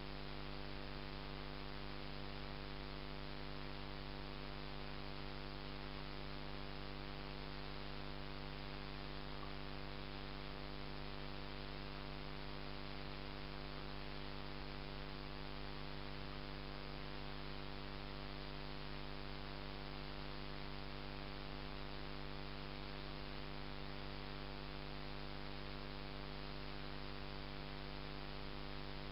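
Steady electrical hum with a hiss, holding the same pitch and level throughout.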